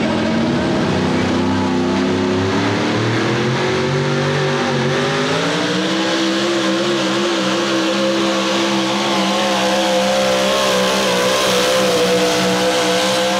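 Modified 4x4 pulling truck's engine at full power dragging a weight-transfer sled. Its pitch climbs over the first six seconds as the truck gets moving, then holds high and wavers slightly while it keeps pulling.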